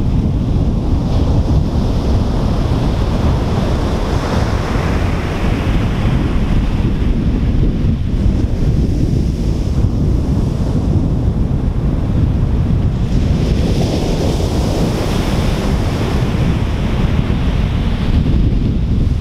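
Ocean waves breaking and washing up a beach, with heavy wind buffeting the microphone. The hiss of the surf swells twice, a few seconds in and again past the middle.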